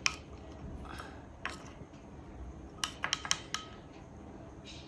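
Scattered light clicks and taps of hands folding a filled spring roll wrapper, with a quick run of several about three seconds in.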